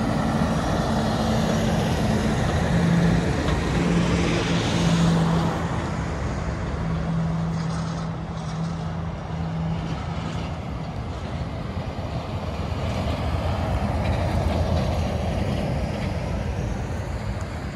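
Diesel articulated lorries driving past: a tractor unit's engine drone holds steady, then fades away about ten seconds in, and a second lorry's rumble swells as it passes close near the end.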